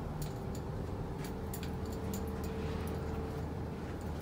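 Steady low background hum with a few faint scattered clicks.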